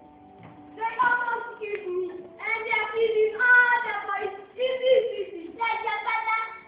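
A child's voice singing a slow tune, with notes held for about a second each and short breaks between phrases.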